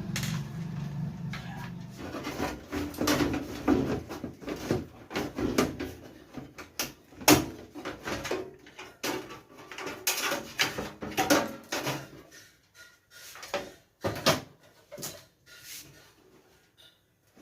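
Computer hardware being handled during disassembly: irregular clicks, knocks and scraping of parts. A low hum fades out in the first couple of seconds, and the knocks grow sparser toward the end.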